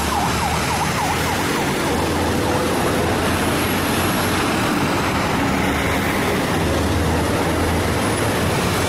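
Military tank-transporter trucks passing on a road, their heavy engines and tyres making a steady low rumble. For the first three seconds a siren yelps over them in quick rises and falls, about three a second.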